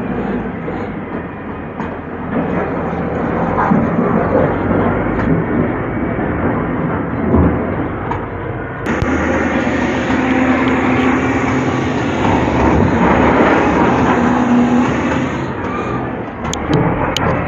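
Diesel engine of an SDLG wheel loader running under load while the machine works.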